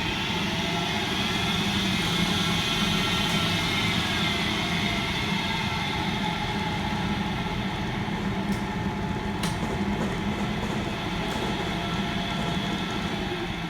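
Hardinge DV-59 lathe's motor and spindle drive running steadily with a hum and whine; its pitch rises and falls back in the first few seconds as the variable-speed fine adjustment is worked. A few light clicks follow near the end.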